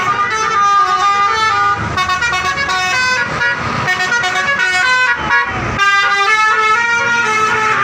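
Bus telolet horn, a Basuri multi-tone horn, playing a quick melody of stepping notes, one after another with hardly a pause.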